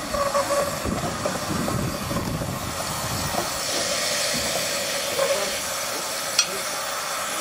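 Miniature 15-inch gauge steam locomotive moving slowly, its steam hissing steadily, with rough low rumbling during the first few seconds. A single sharp click comes near the end.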